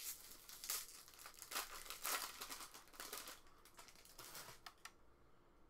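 Foil wrapper of a Topps Chrome jumbo card pack being torn open and crinkled: a quick run of sharp crackles that stops about five seconds in.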